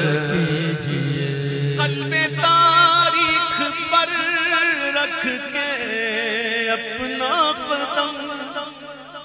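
A man singing a naat in a long, drawn-out, ornamented line with wavering vibrato, over a steady low hum; the voice fades out near the end.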